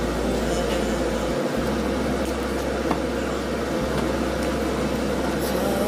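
Steady roar of a commercial gas wok burner on high flame, with liquid boiling in the steel wok.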